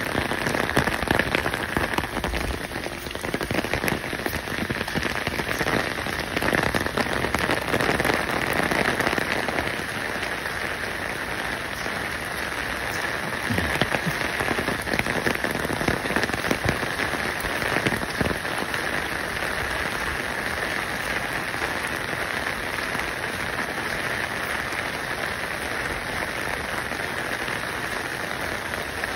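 Steady hiss of water with a fine crackle running through it, swelling a little a few times in the first half.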